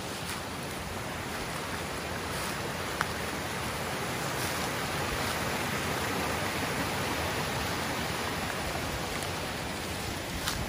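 Small mountain creek running over rocks and little cascades: a steady rushing hiss that swells a little midway.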